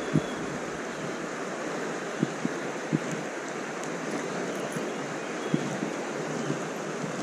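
Steady rushing of a fast-flowing river, an even hiss of moving water, with a few soft knocks from handling the rod and reel.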